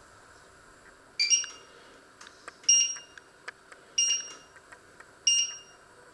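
Touch-control panel of an electric glass-top hob beeping four times, short high beeps a little over a second apart. Each beep answers a finger press that steps the cooking zone's power setting up.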